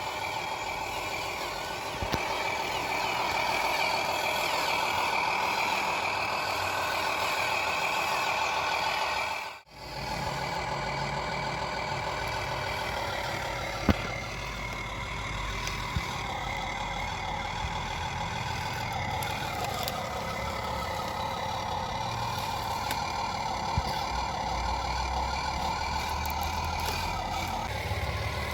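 Truck sounds: a low engine rumble with steady, horn-like tonal notes held over it. The sound cuts out briefly about ten seconds in, and the low rumble is stronger after that, with a few sharp clicks.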